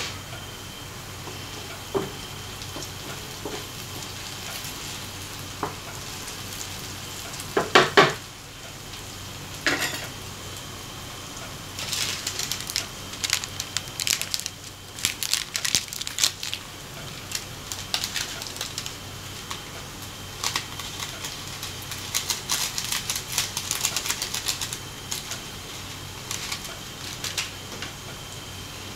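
Diced potatoes, ham and onion frying in oil in a pan: a steady sizzle with crackling and popping that grows busier from about the middle on. Two louder clatters of kitchenware come about a third of the way in.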